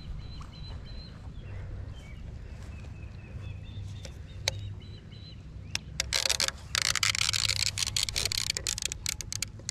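Rustling and rapid clicking of fishing gear being handled, starting about six seconds in, over a steady low rumble and faint bird chirps.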